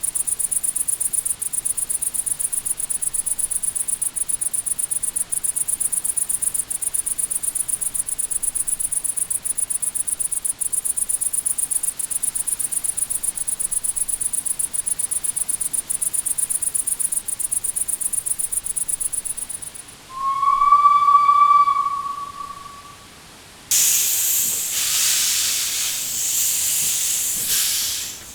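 Crickets chirp in a fast, steady trill. About twenty seconds in, a steam locomotive's whistle gives one steady blast of about a second and a half. A few seconds later a burst of hissing steam runs for about four seconds and stops.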